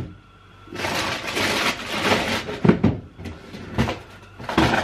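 Someone rummaging through stored things: a rustle for about two seconds, then a few separate knocks as items are moved and put back.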